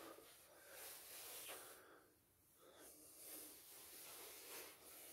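Near silence, with faint breathing close to the microphone that swells and fades a few times.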